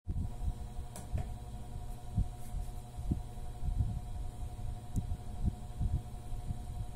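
Irregular low bumps and rumble of handling noise, over a faint steady hum of several tones.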